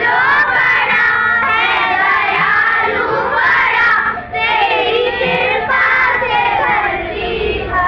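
A large group of children singing a prayer song together in unison, loud, with a short break about four seconds in.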